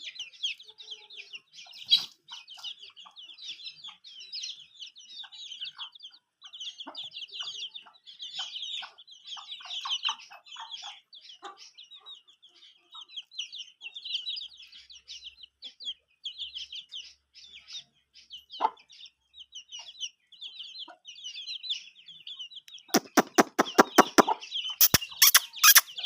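A brood of chicks peeping continuously and high-pitched, with a hen's short lower clucks among them. Near the end a quick run of loud sharp taps, about five a second, breaks in.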